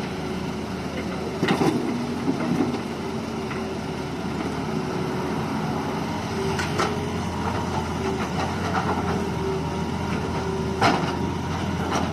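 Heavy diesel engine of an excavator running steadily while it loads soil into a dump truck, with a few sharp knocks, one about a second and a half in, one near the middle and one near the end.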